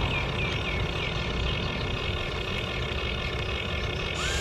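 Steady low mechanical hum from a radio-controlled excavator working its arm and lowering its bucket into sand.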